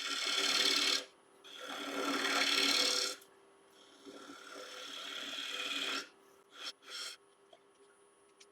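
A turning tool cutting a spinning walnut bowl blank on a wood lathe, removing excess material: three scraping passes of a second or two each, then two short touches, over the lathe's steady hum.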